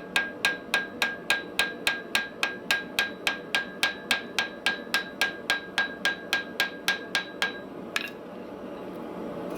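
Rapid, evenly paced hammer blows on metal over an anvil, about three and a half a second, each with a bright metallic ring. They stop about eight seconds in, and a steady rushing noise then grows louder.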